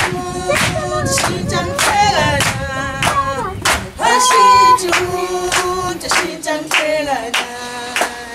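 Junior choir singing a cappella with rhythmic hand claps, as a music soundtrack.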